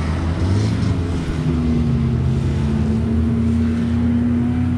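Snowmobile engine running, its pitch rising about a second in and then holding steady.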